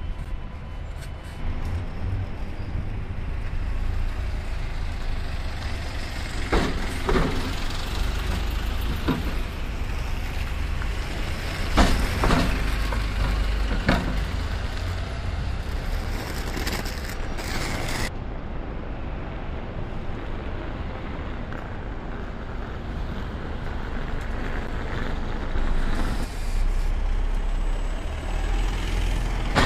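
Double-decker buses running and pulling away, a steady engine rumble broken by several short air-brake hisses.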